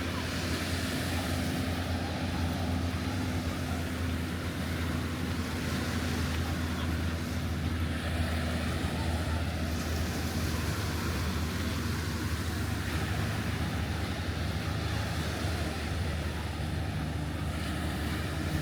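Steady beach ambience of surf and wind buffeting the microphone, with a low, steady drone underneath.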